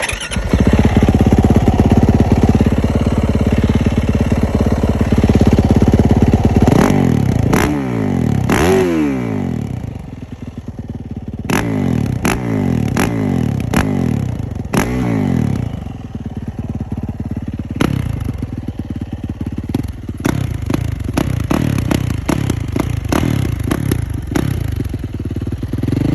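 2019 Yamaha YZ450F's single-cylinder four-stroke engine running and being revved. A few big revs sweep up and down about a third of the way in, followed by a string of short, sharp throttle blips over a fast idle.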